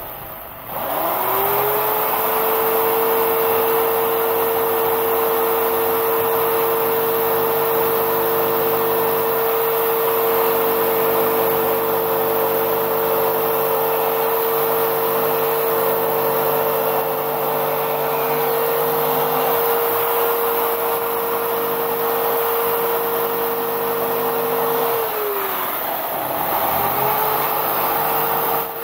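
Electric jigsaw running with its blade cutting into blue foam board: the motor spins up about a second in, holds a steady whine, winds down about 25 seconds in and starts again about two seconds later.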